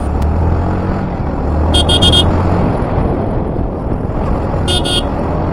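Yamaha motorcycle engine running steadily under road and wind noise, picked up by an action camera's built-in microphone while riding. A horn beeps briefly twice, about two seconds in and again near the end.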